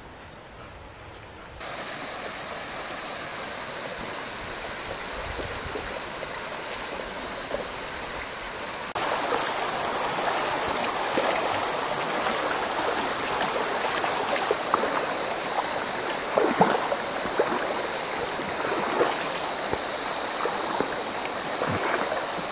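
Shallow river water rushing steadily over a stony bed, with a thin steady high-pitched buzz above it. The rushing comes in about two seconds in and grows louder about nine seconds in. In the later part, short splashes from a person and two dogs wading through the current.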